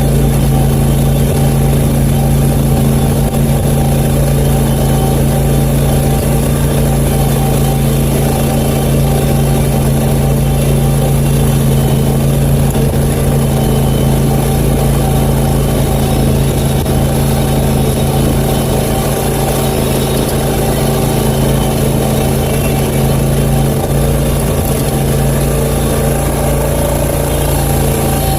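Country Clipper zero-turn mower's engine running at a steady speed, heard from the seat as it drives.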